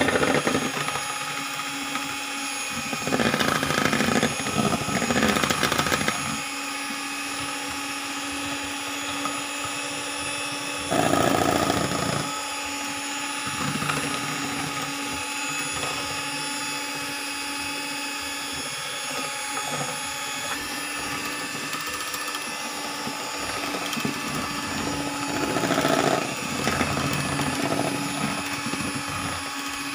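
Electric hand mixer running steadily, its beaters whipping chilled cream in a stainless steel bowl. The sound gets louder and noisier in a few short stretches: about three seconds in, around eleven seconds, and near the end.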